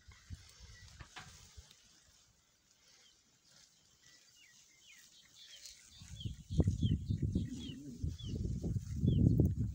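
A bird repeats a short falling chirp about every half second, and from about six seconds in a loud, gusty low rumble buffets the microphone.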